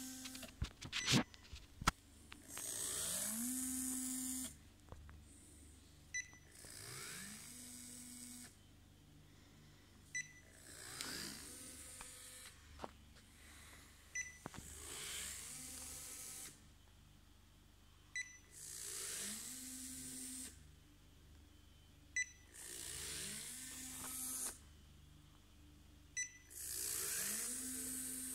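Small geared DC motor of a homemade Arduino laser scanner driving its gear-turned head in steps: about every four seconds a short beep, then the motor whine rises in pitch, runs steadily for about two seconds and stops. A few clicks come in the first two seconds.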